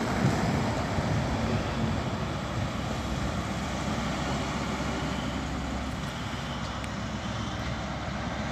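LNER InterCity 225 express passing over the crossing: a steady rumble of wheels on rail that eases a little as the tail of the train goes by.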